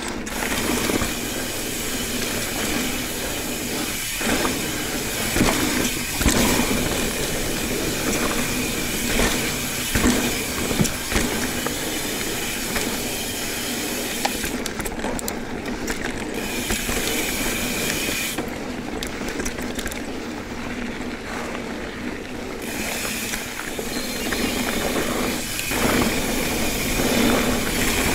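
Ibis Ripley 29er mountain bike riding a rough dirt trail: tyres rolling over dirt and rock under a steady rush of noise, the bike rattling, with sharp knocks over bumps about four, six, ten and twenty-five seconds in.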